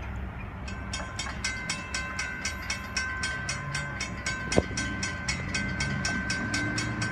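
Railroad grade-crossing warning bell ringing rapidly and evenly, starting just under a second in, over the low rumble of road vehicles. A single sharp knock comes about halfway through.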